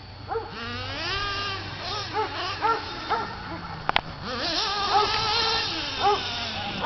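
Dog whining and whimpering in excited, repeated high-pitched cries that rise and fall, with a sharp click about four seconds in.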